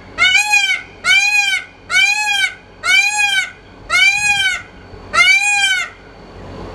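Male Indian peafowl (peacock) giving his loud mating call: six calls in a row, about one a second, each rising and then falling in pitch.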